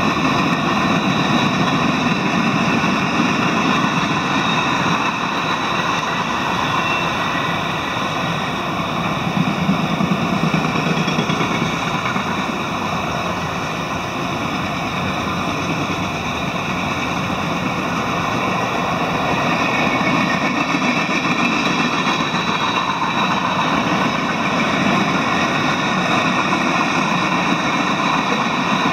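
Freight cars of a long mixed manifest train rolling past at speed: the steady, continuous noise of steel wheels running on the rails.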